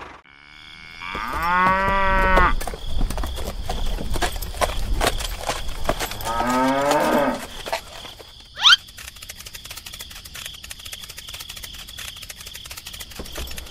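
A cow mooing twice: one call about a second in and a second one, falling in pitch, about six seconds in, over a run of light tapping clicks. A brief sharp rising squeak, the loudest sound, comes just before the ninth second.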